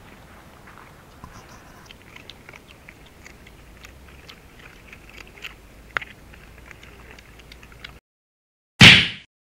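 Several dogs eating chopped cooked chicken, with faint irregular chewing, crunching and lip-smacking clicks. It cuts to silence, then near the end comes one short, very loud ding-like sound effect that fades out quickly.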